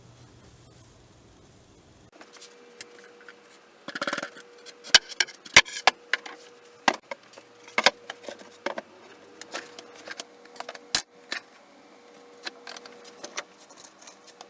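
Small workshop handling sounds: an irregular run of sharp clicks and knocks of wood and metal parts and hand tools, with a brief rasp of quick ticks about four seconds in.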